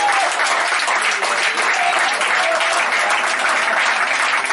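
Spectators clapping and cheering for a goal, with a few voices calling out over the applause.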